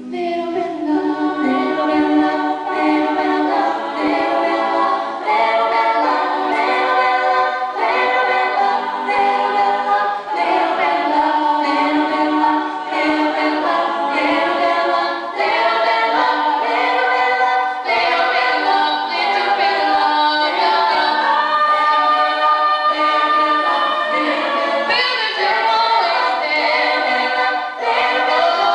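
Women's a cappella group singing a song in several-part harmony, voices only with no instruments, some amplified through handheld microphones.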